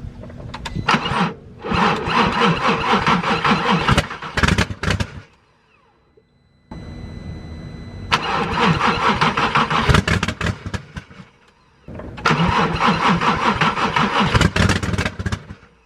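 Car engine cranked by its starter three times, each attempt a few seconds of fast rhythmic churning that stops sharply without the engine catching and running. The engine is failing to start after vacuum hose repairs.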